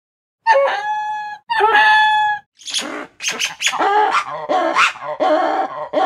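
Lemur calls: two drawn-out, wavering high-pitched calls about a second in, then a rapid string of short yelping calls.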